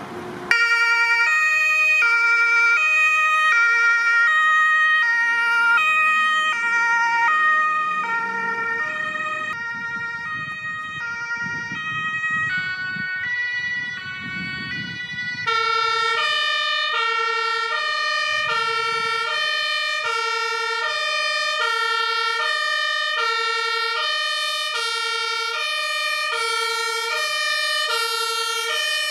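German two-tone emergency siren on a fire brigade vehicle, switching back and forth between two pitches about once a second. It steps up suddenly in loudness about halfway through.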